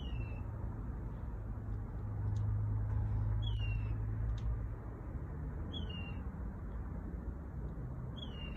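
A bird calling: a short, downward-sliding whistled note repeated four times, about every two and a half seconds. A steady low rumble runs underneath.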